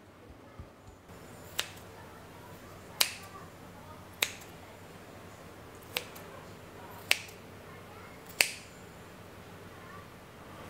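Kitchen knife cutting pork belly into chunks, the blade knocking sharply on the surface beneath at each cut, six times.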